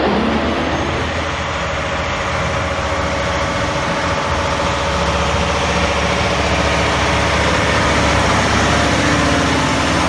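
Cummins ISX15 inline-six diesel of a Kenworth ICON 900 semi truck idling steadily, a low even engine hum.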